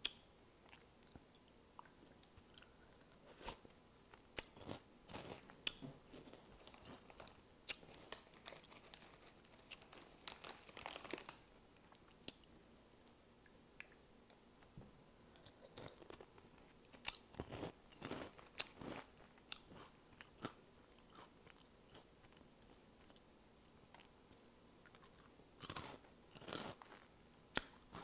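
Crunching and chewing of Flamin' Hot Cheetos, in several bursts of crisp crackling bites with quieter stretches between.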